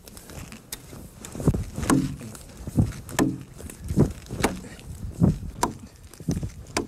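An axe chopping rhythmic slash-scoring cuts into the side of a log, about two to three dull wooden chops a second. This is scoring the log ahead of hewing it with a broadaxe.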